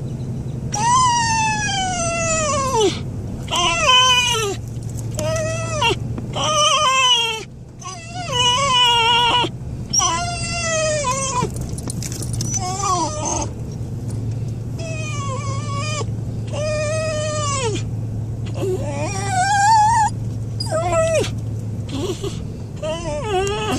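Dog whining in excitement: a long run of high cries that slide downward in pitch, one after another with short breaks, over a steady low hum.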